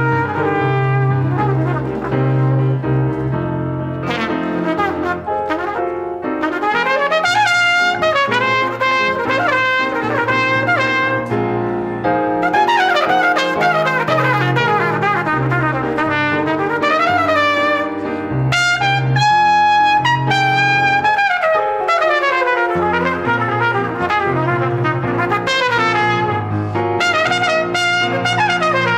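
Salsa music: a brass section of trumpets and trombones playing melodic lines over a pulsing bass line.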